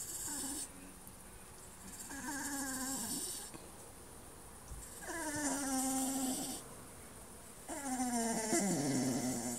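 Dog whining four times, each a drawn-out, breathy whimper that falls in pitch: the frustrated whine of a dog that wants to play.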